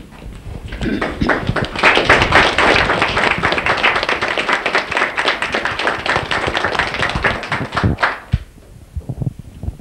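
Small crowd applauding, starting about a second in and ending about eight seconds in.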